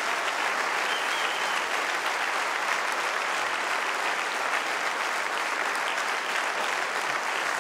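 A large arena audience applauding steadily, dense clapping without a break.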